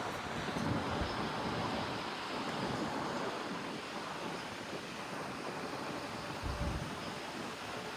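Wind buffeting the microphone over a steady rushing outdoor noise, with a stronger gust about six and a half seconds in.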